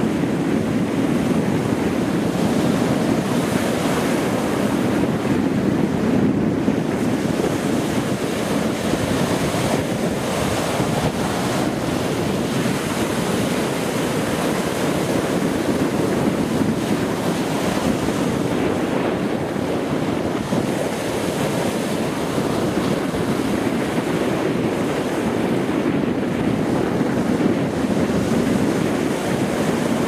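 Sea surf: waves breaking and washing up onto a sandy beach in a continuous rushing wash.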